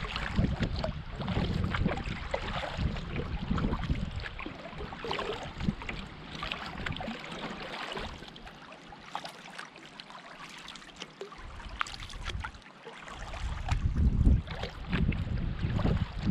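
Wind buffeting the microphone in low gusts, which ease off for a few seconds midway and come back strongly near the end. Underneath, water splashes and laps against a canoe as it is paddled.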